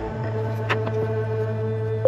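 Background music: slow ambient chords held steady, with one brief click about two-thirds of a second in.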